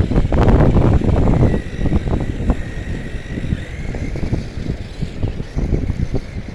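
Remote-control truck's electric motor whining, its pitch dipping and rising as it drives, over rough low rumbling and knocking that is loudest in the first second and a half.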